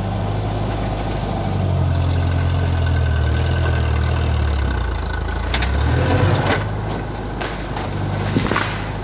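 Farm tractor engine running under heavy load as its front loader pushes a large tree over: the engine note sags and labours about halfway through, then picks back up. Sharp cracks and snaps come around two-thirds of the way in and again near the end as the tree's roots tear loose.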